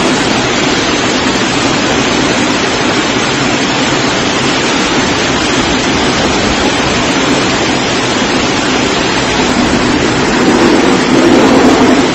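Floodwater rushing down a street in a steady, loud torrent, growing louder near the end.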